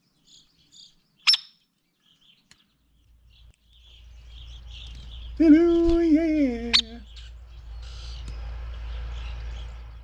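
Sharp, high 'peek' calls of a hairy woodpecker, one about a second in and another near the middle, with faint chirps around them. Halfway through a man sings a short falling 'hello yeah' jingle, over a low rumble that builds from about three seconds in.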